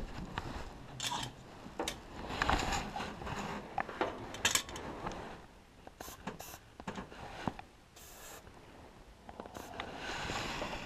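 Hand tools clinking and scraping on an engine's water outlet and cylinder head as the outlet is worked off: scattered sharp metallic clicks and knocks, with a longer scraping rasp near the end.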